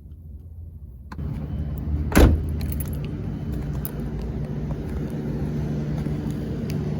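Steady low hum of a car with small clicks and jangling, and one loud knock about two seconds in.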